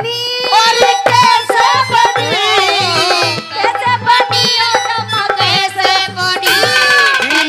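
Haryanvi ragni folk song: a woman singing into a microphone over a hand-drum beat and a held instrumental note, loud through a PA system.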